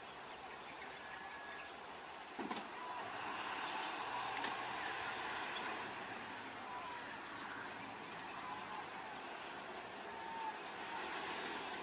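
Steady high-pitched insect drone, like cicadas, running unbroken, with a few faint short chirps over it.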